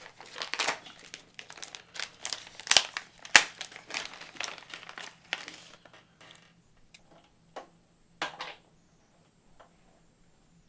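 Plastic packet of zip ties crinkling and rustling as it is handled and opened, with two sharp snaps about a third of the way in. The crinkling stops a little past halfway, leaving a few scattered clicks and one short rustle.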